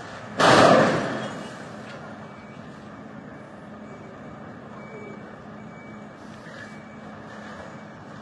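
Steady noise of a vehicle running, with one sudden loud burst of noise about half a second in that dies away over about a second.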